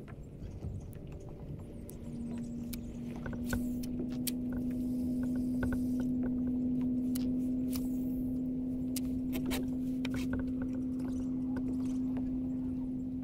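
A steady motor hum at one even pitch comes in about two seconds in and holds, with light clicks and taps of fishing gear over it.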